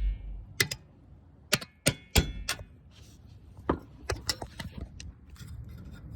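Hammer striking a punch to drive out the rear brake pad retaining pin: several sharp metallic knocks, some with a short ring, in the first couple of seconds and one more a little later, then lighter clinks and rattles of loose metal parts.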